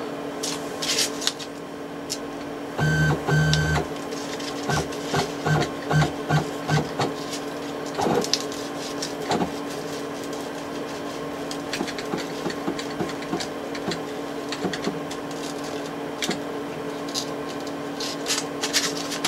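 CNC mini mill's stepper motors jogging an axis: two longer moves about three seconds in, then a run of short step-jogs, over a steady electrical hum and scattered clicks, as the cutter is touched off to zero.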